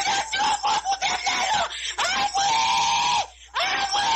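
A person screaming and wailing in distress: quick shouted cries, then a long held wail about two seconds in and another near the end.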